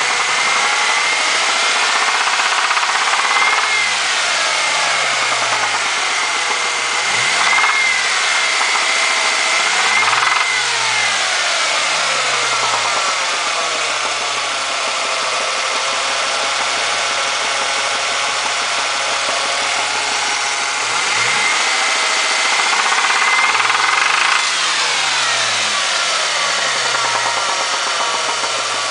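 2003 Ford Mustang engine idling and revved up briefly several times, with a knock that the owner takes for piston slap and rod knock.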